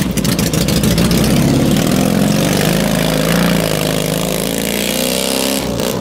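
Dnepr K750 sidecar motorcycle's side-valve flat-twin engine running under throttle as the rig pulls away through mud and drives off, getting gradually quieter as it moves away.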